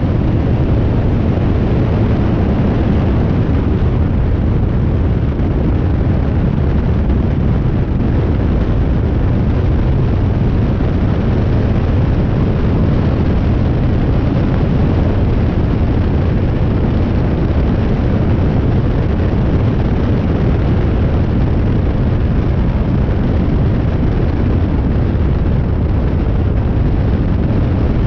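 Steady in-flight noise of a light high-wing propeller aircraft, heard from a camera mounted on the outside of the airframe: a loud, even rush of wind buffeting the microphone, blended with the engine and propeller.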